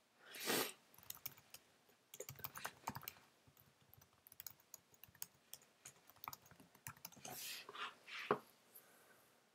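Faint typing on a computer keyboard: scattered key clicks. There is a short rushing noise about half a second in, and another shortly before a sharper, louder click near the end.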